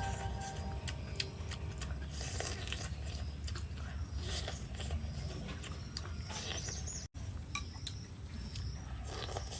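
Faint, scattered light clicks and clinks of eating, with cutlery and dishes touching, over a steady low hum.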